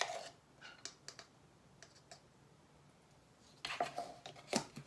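Light clicks and taps of a measuring spoon and plastic lid against a can of baking powder. There are a few soft clicks at first, then a quiet stretch, then a quick cluster of clicks near the end.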